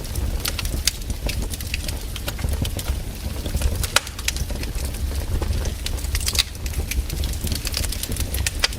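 Wood bonfire burning, with irregular sharp crackles and pops from the burning wood over a steady low rumble.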